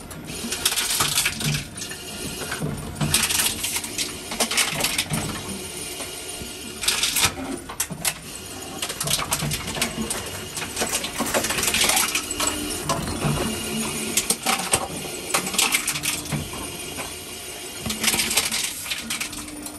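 Reverse vending machine for bottle and can deposits taking in plastic bottles. Repeated bursts of clattering and rattling, each a second or two long, as the containers are run along the conveyor and dropped inside.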